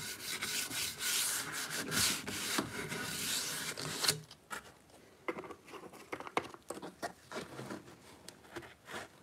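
Gloved hand briskly rubbing linseed oil into a wooden axe handle, a dense rubbing noise that stops about four seconds in. A few faint light knocks follow.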